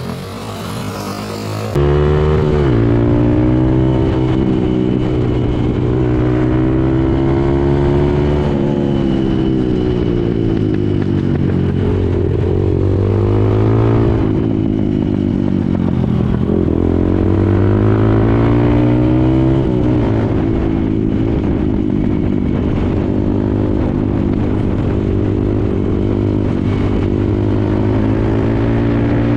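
Motorcycle engine heard from on board, pulling hard and rising and falling in pitch several times as the throttle opens and closes through gear changes. It starts suddenly about two seconds in, after a quieter opening.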